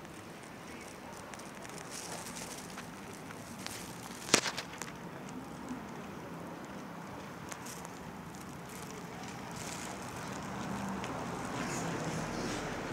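Steady outdoor street background noise with scattered small clicks and crackles and one sharp click about four seconds in.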